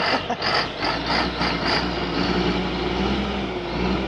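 Heavy diesel engine of a loaded log truck working hard uphill, pulsing about three times a second at first, then settling into a steady low drone that sags slightly in pitch near the end.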